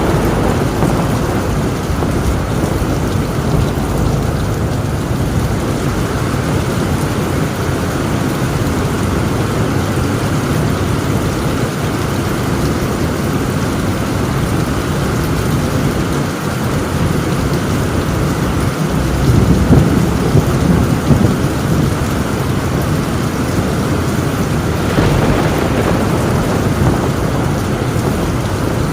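Heavy rain drumming steadily on a tin roof, with deep rolling thunder underneath; a louder roll of thunder swells about two-thirds of the way through.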